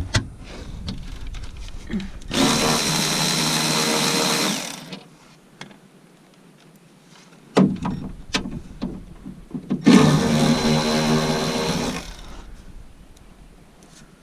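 A power drill-driver runs twice, each time for about two seconds, backing out fasteners on a tractor's console panels. Light clicks and knocks of handled parts come between the runs.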